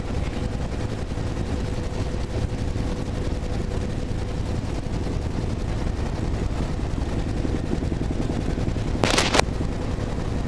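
Helicopter in flight heard from inside the cabin: steady rotor and turbine noise with a rapid rotor beat and a constant whine. A brief burst of noise about nine seconds in.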